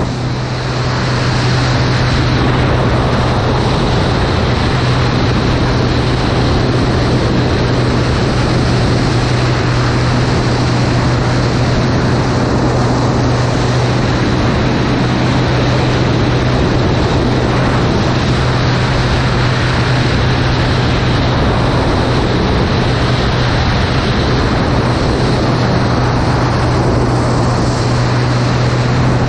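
Single-engine aerobatic monoplane's piston engine and propeller running at a steady, unchanging drone in flight, with a dense rush of air noise over the wing-mounted microphone.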